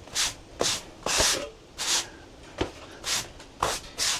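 A series of short swishing or scraping strokes, about two a second, with a couple of sharp knocks among them.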